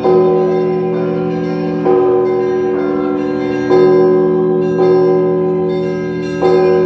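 Church bells ringing: five heavy strokes about one and a half to two seconds apart, each ringing on and fading before the next.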